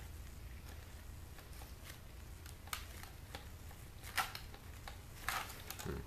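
Scattered light clicks and taps of a screwdriver and small screws against the plastic case of a portable DVD player as the screws holding the disc-drive mechanism are taken out, a few sharper clicks in the second half. A low steady hum lies underneath.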